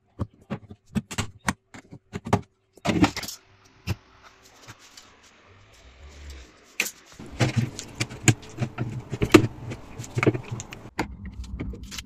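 A screwdriver clicking and scraping against a refrigerator's plastic liner as an LED light strip is pried out, with a quick string of sharp plastic clicks and rattles. After a quiet pause of a few seconds come more irregular knocks and scraping as the screwdriver works at the plastic trim.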